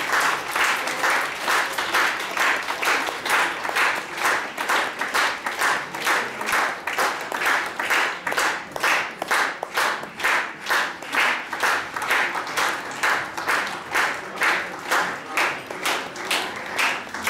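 Concert audience applauding, the clapping falling into steady rhythmic unison at about two claps a second.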